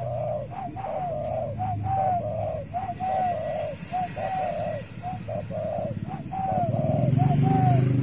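Spotted dove cooing, a steady string of short, repeated coos. A low rumble swells near the end.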